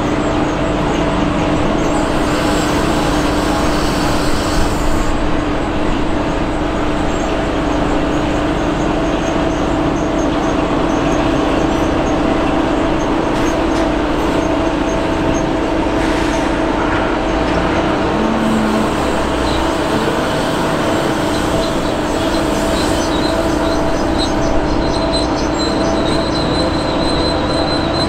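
Heavy plant at work: a Hidromek HMK 640 wheel loader and a tracked Terex Finlay screening plant running together. They make a steady mechanical drone with constant whining tones, and material pours from the loader's bucket into the screener's hopper around the middle. A faint repeating high beep comes in near the end.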